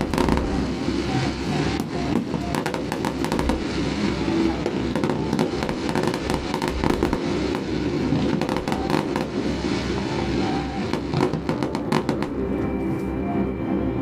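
Fireworks crackling and popping in a quick, irregular run of sharp cracks over a continuous rumble.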